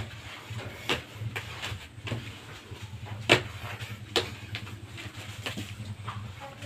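Hands and feet slapping and thudding on a tiled floor during burpees: a sharp impact about once a second, the loudest a little past the middle, over a low steady hum.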